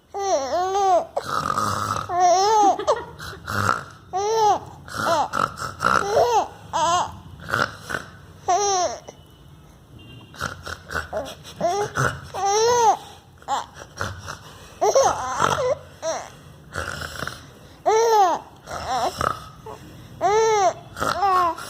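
A child laughing in repeated high-pitched bursts of giggles and squeals, with a brief lull about nine seconds in.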